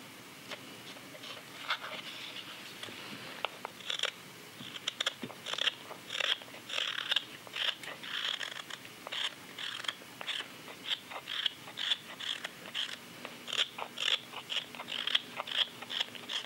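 Carving knife paring wet, green sycamore in short slicing strokes, each a crisp crunch as a shaving comes away. The cuts are sparse at first and come about twice a second from about four seconds in.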